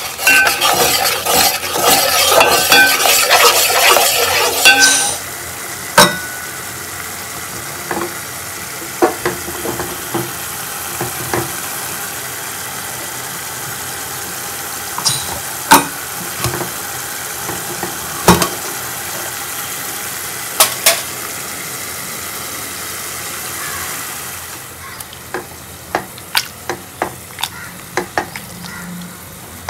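Food sizzling in a pan as it is stirred: a loud, dense crackling sizzle for the first five seconds, then a steadier sizzle with a spoon knocking and clinking against the pan now and then, dying down near the end.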